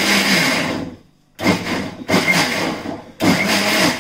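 Electric mixer grinder blending mango pieces with ground brown sugar and cardamom. It runs steadily, winds down about a second in, then is switched on again in three short pulses.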